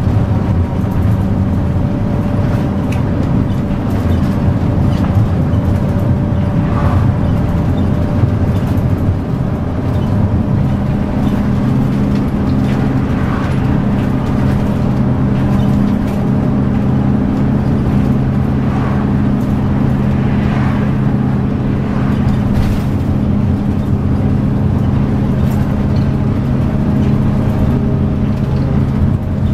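Route bus's diesel engine running steadily at road speed, heard inside the cabin with tyre and road noise. The engine note steadies and firms up about ten seconds in, and there are a few light rattles.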